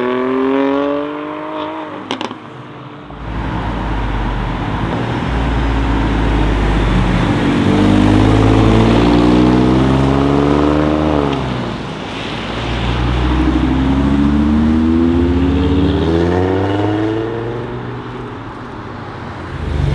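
Alfa Romeo Giulia Quadrifoglio's 2.9-litre twin-turbo V6 accelerating hard. Its exhaust note rises in pitch through the gears, dropping at each upshift, and fades near the end. At the start another sports car's engine revs up and fades away.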